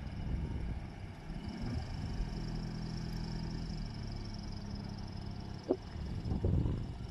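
A forklift engine idling steadily with a low hum. A sharp click sounds about three-quarters of the way through, followed by a softer knock.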